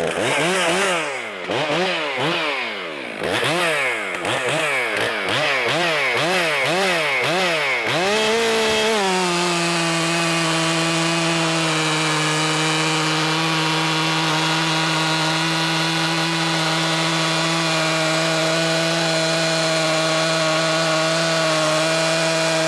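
Stihl MS 400 C chainsaw, warmed up and M-tronic tuned, revved up and down in quick repeated blips for about eight seconds. It is then held at full throttle at a steady pitch as it crosscuts a large log. It runs a hand-filed 3/8 full-chisel County Line chain whose rakers are filed aggressively low.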